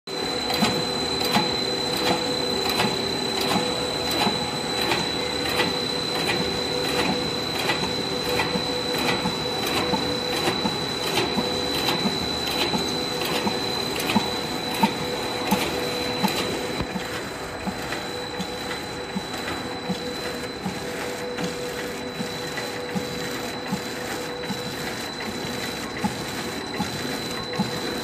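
Automatic clay extruding and packing machine running: a steady high whine with a regular click about every 0.7 seconds as blocks move through the wrapping cycle. The sound grows a little quieter about two-thirds of the way in.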